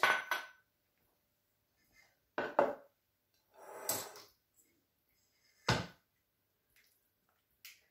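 Kitchenware being handled: a sharp knock as a glass bowl is set down on a wooden cutting board, a longer clatter of a stainless steel mixing bowl being lifted with a spatula, and another sharp knock of the spatula and bowl, with quiet gaps between.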